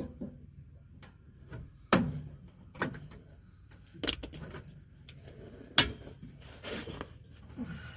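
Four sharp knocks and clicks a second or more apart, with light scraping in between: tools and parts being handled during an air-bag install on a pickup's rear suspension.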